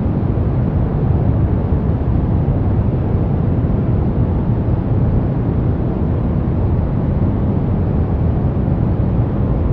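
Soft brown noise: a steady, even rumbling hiss, strongest in the bass and fading toward the treble, with no changes.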